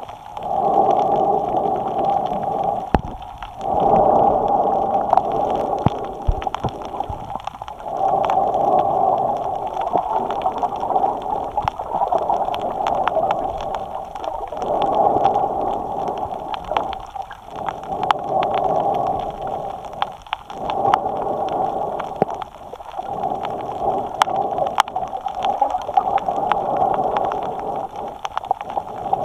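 A snorkeler's breathing through the snorkel, picked up close by a camera mounted on the snorkel. Each breath is loud, with a short dip between breaths about every three seconds. Small water clicks and crackles are scattered over it.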